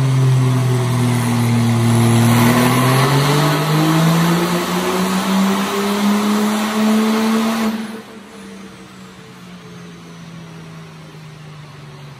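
Diesel Dodge Ram pickup making a full-throttle pull on a chassis dyno. The engine note climbs steadily as it winds up against the rollers, producing about 1635 lb-ft of torque with black smoke. About eight seconds in the throttle is cut, and the engine drops to a much quieter, falling note as it winds down.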